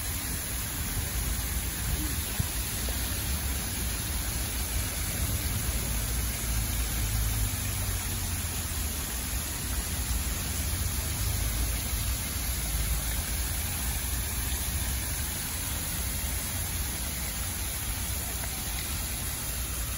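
Steady hiss of the Monument aux Girondins fountain's water jets splashing down into its stone basin, with a low rumble underneath.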